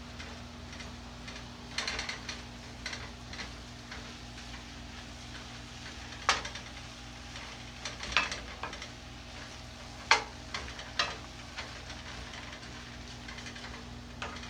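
Wooden spoon stirring and scraping stir-fried vegetables in a stainless steel pan while they sizzle, with sharp knocks of the spoon against the pan about six, eight and ten seconds in. A steady low hum runs underneath.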